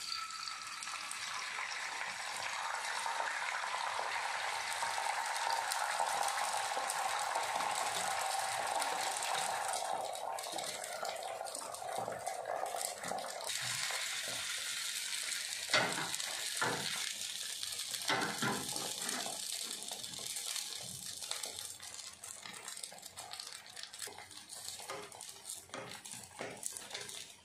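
Beaten egg poured into hot oil in a frying pan, sizzling loudly the moment it lands as it fries into an omelette. The sizzle thins after about 13 seconds, and scattered taps and scrapes of a wooden spatula on the pan follow.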